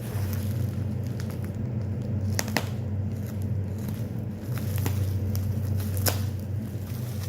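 Packaging and a phone being handled by hand, with light crackling and a few sharp clicks, over a steady low hum.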